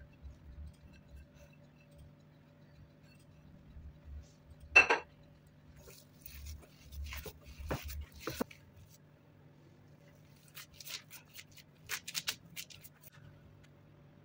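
Hands working dough in a glass mixing bowl: the glass knocks and clinks, sharpest once about five seconds in with a short ring, then a few more knocks and light scraping clicks, over a faint steady hum.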